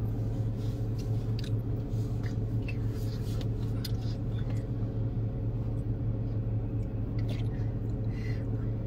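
Steady low hum of a running car heard inside its cabin, even in level throughout, with a few faint clicks and rustles over it.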